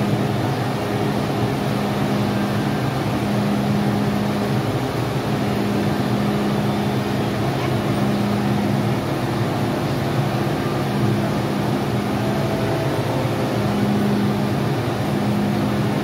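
Hum of a stationary MTR M-train's onboard equipment while it waits at the platform. A low tone comes and goes about every two seconds over a steady background hum.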